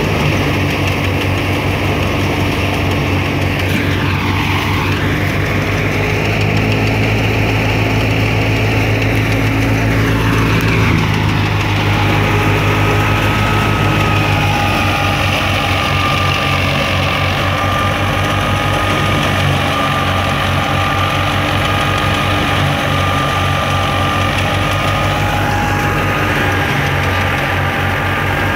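Ghazi 65 hp diesel tractor driving a wheat thresher, the engine running steadily under load with the thresher's drum and fan turning. A steady high whine sits over the low engine hum from about halfway on.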